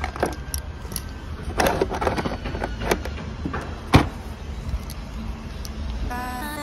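Hardware being handled: scattered clicks and knocks, with one sharp knock about four seconds in, over a steady low rumble. Background music comes in near the end.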